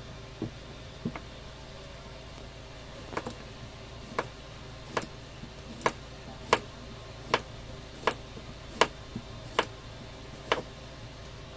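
A chef's knife slicing a cucumber into rounds, each cut ending in a sharp tap of the blade on a wooden cutting board: about ten cuts a little under a second apart, starting about three seconds in.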